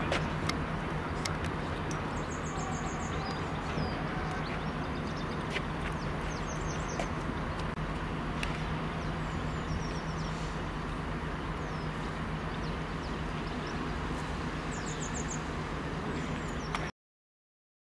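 Class 70 diesel locomotive approaching slowly, its engine giving a steady low hum. Birds chirp in short high trills four times. The sound cuts off suddenly about a second before the end.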